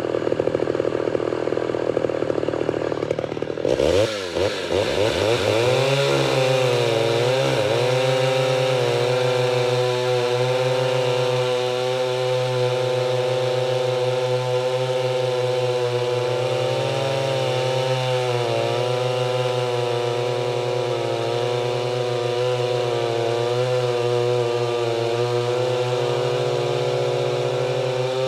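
Homelite two-stroke chainsaw at full throttle cutting through a round of very hard, dry firewood. Its pitch dips about four seconds in as the chain takes the load, then holds steady, wavering slightly, as it saws through.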